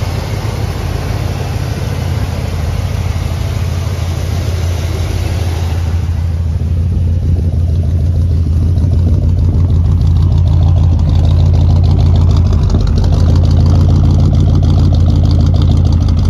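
1969 Ford Galaxie 500's V8 engine idling steadily and loudly, with no revving.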